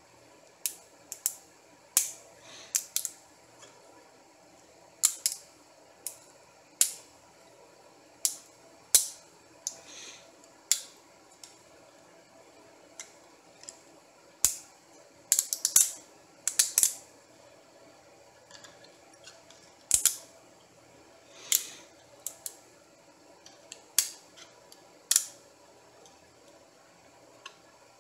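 Sharp, irregular snaps and clicks of printed plastic support material being cut and broken away from a freshly printed 3D part, sometimes a few a second, with a quick cluster about fifteen to seventeen seconds in.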